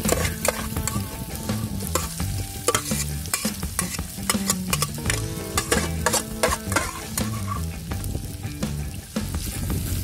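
Tofu cubes, onion and green chilies sizzling in a hot pan while a metal spatula stirs and scrapes them, with frequent sharp clinks against the pan.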